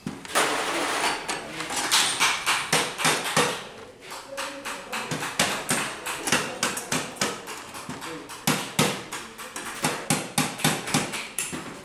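Metal engine parts and hand tools clinking and knocking against a steel workbench while a scooter engine's cylinder is handled and fitted over the piston. It opens with about two seconds of scraping rustle, then an irregular run of sharp clicks and taps.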